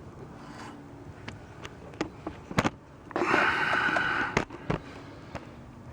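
Light clicks and knocks of metal parts and tools being handled while a clutch slave cylinder is worked back into place, with a breathy hiss lasting about a second a little past the middle.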